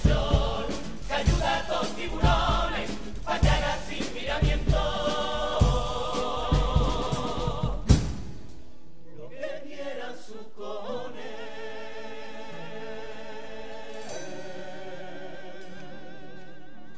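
A carnival comparsa choir singing in harmony with Spanish guitars, backed by beating bass drum and snare. The drums stop on a final hit about eight seconds in, and the voices carry on softer with the guitars.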